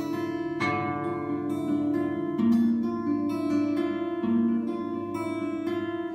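Acoustic guitar picked note by note in a slow introduction, each note ringing on under the next.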